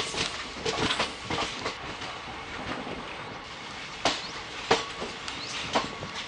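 Running noise of a moving train heard from on board: wheels clattering and knocking irregularly over rail joints above a steady rumble and rattle, with a few short, high squeals.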